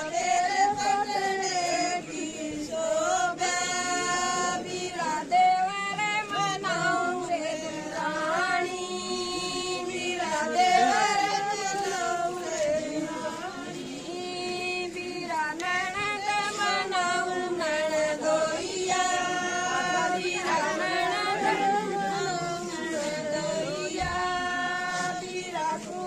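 A group of women singing together, a melody with long held notes and no drumbeat.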